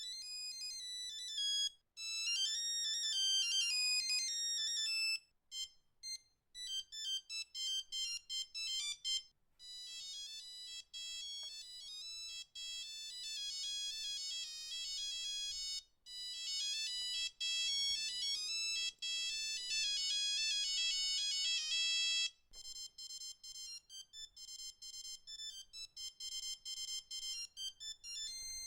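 Built-in monophonic ringtones of an original Nokia 3210 playing one after another, each a short beeping melody of stepped notes. The tune changes several times.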